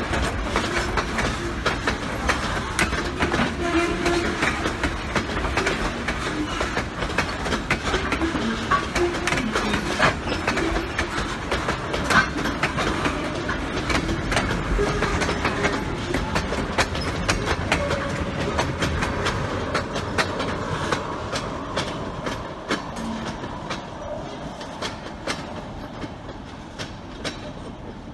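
Freight train of hopper, gondola and tank cars rolling past, steel wheels clicking over the rail joints. The sound fades over the last several seconds as the end of the train moves away.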